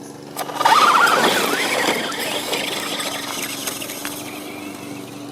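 Electric motor of a Traxxas Slash RC short course truck whining and rising in pitch as it speeds off, starting about half a second in, then fading as the truck drives away.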